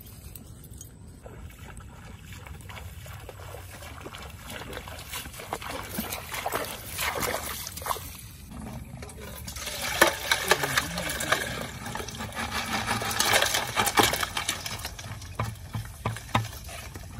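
Water sloshing and pouring in uneven splashy bursts, loudest in the second half: a plastic bucket of water and live crabs being tipped into a metal basin.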